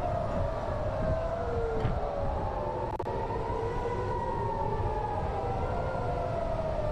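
Several air-raid sirens wailing at once, out of step, their pitches slowly rising and falling across one another over a steady low rumble. They are sounding the alert for incoming missiles.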